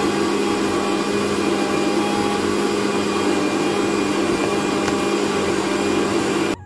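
Electric mixer grinder running loudly and steadily, puréeing ripe peeled mangoes into a smooth paste in its steel jar. It cuts off abruptly right at the end.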